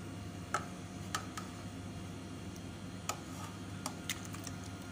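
A scattering of light clinks as a metal ladle knocks against the aluminium cooking pot while coconut-milk chicken broth is ladled out, over a low steady hum.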